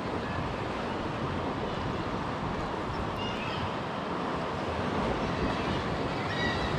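Steady sea noise of waves washing against rocks, mixed with wind on the microphone.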